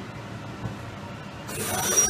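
Low, even machine noise, then about one and a half seconds in a rising whine as the spindle of a Kitamura MyCenter-4XT CNC machining center starts to speed up.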